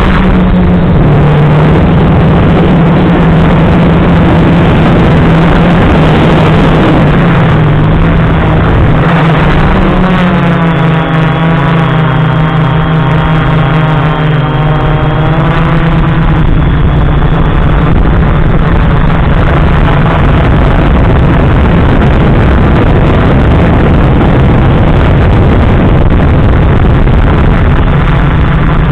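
FPV quadcopter's electric motors and propellers running in flight, a loud steady drone with wind noise. For several seconds midway a clearer whine shifts in pitch as the throttle changes.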